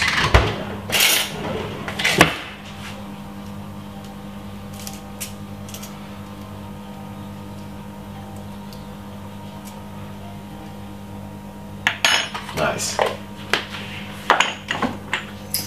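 A metal spoon clinking and clattering against a seasoning jar, dish and cutting board, in sharp knocks over the first two seconds and again through the last few seconds. Between the two bursts there is a steady low hum.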